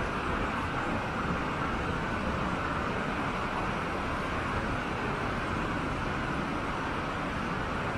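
Fast-flowing river rushing over rocks, a steady even rush of water with no breaks.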